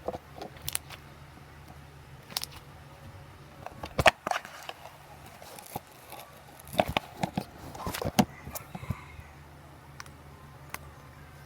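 Hands working homemade foamy slime, making scattered sticky clicks and pops. They are loudest about four seconds in and again in a cluster around seven to eight seconds.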